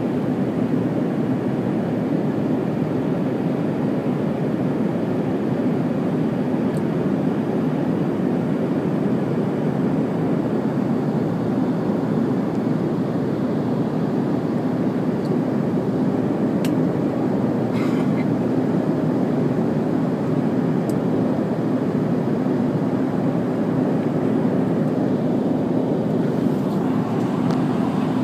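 Cabin noise inside an Embraer ERJ-145 regional jet in the climb after takeoff: the steady roar of its two rear-mounted Rolls-Royce AE 3007 turbofans and the rushing air, with a steady low hum under it.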